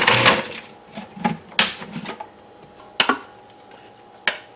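Countertop food processor running on a pulse and cutting off just after the start; then a few sharp plastic clicks and knocks as its lid and bowl are unlocked and lifted off the motor base.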